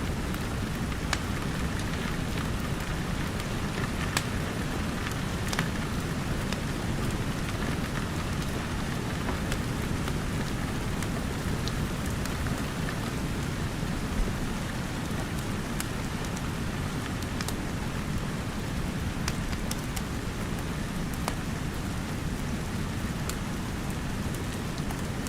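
Steady rain falling, with a fireplace fire crackling over it in scattered sharp pops.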